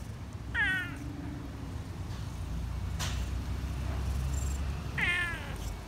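Tabby cat giving two short meows, one about half a second in and one near the end, over a steady low rumble, with a single click in the middle.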